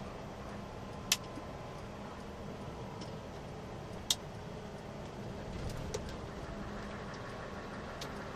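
Inside the cab of a Scania R580 truck under way: a steady drone of engine and road noise with faint steady tones. Two sharp clicks about three seconds apart stand out, followed by a few fainter ticks.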